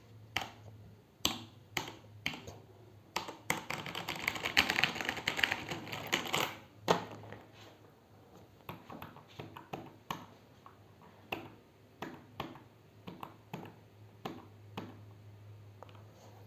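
Keystrokes on a HyperX Alloy Elite mechanical keyboard with Cherry MX Red linear switches: scattered key presses, a fast burst of typing from about three and a half to seven seconds in, then slower, scattered keystrokes.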